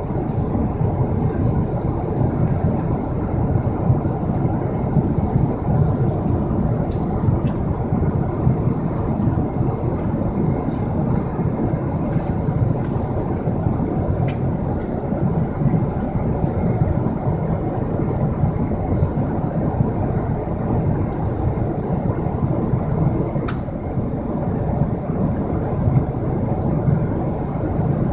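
Steady cabin roar of a Boeing 777-300ER in flight: a deep, even rumble of engine and airflow noise, with a few faint clicks.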